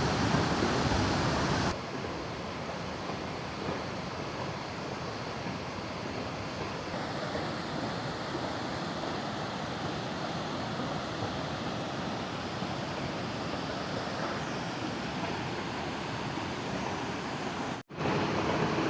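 Steady rushing noise of a waterfall, with some wind on the microphone. The level drops abruptly about two seconds in, and the sound cuts out for an instant near the end.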